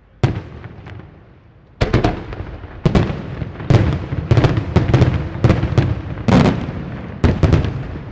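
Aerial firework shells bursting: a single sharp bang just after the start, then from about two seconds in a rapid volley of a dozen or so bangs with a rumble between them, dying away at the end.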